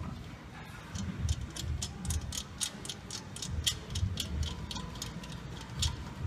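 Hand ratchet wrench clicking steadily, about four clicks a second for several seconds, as a bolt on the engine is turned.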